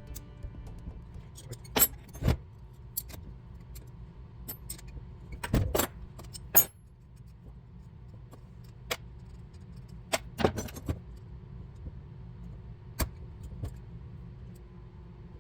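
Irregular metallic clicks and clinks of hand tools and small parts while Solex P40-II carburetors are taken apart. A steady low hum runs underneath.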